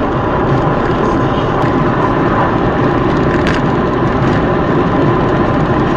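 Steady road and engine noise of a car driving at highway speed, heard from inside the cabin, with a single sharp click about three and a half seconds in.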